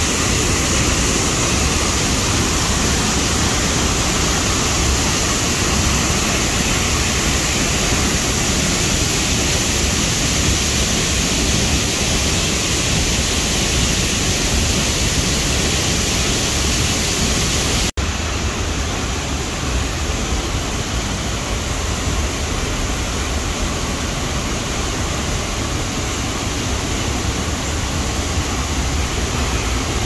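A waterfall close by, a steady full rush of falling water. About two thirds of the way through it cuts abruptly to a slightly quieter, duller rush of water.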